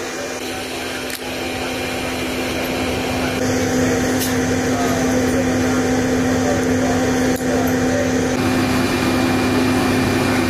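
Steady hum and whine of a parked C-130 transport aircraft's turbine running, with a strong steady tone under a hissing rush. The sound steps up in level about three and a half seconds in and changes again near the end.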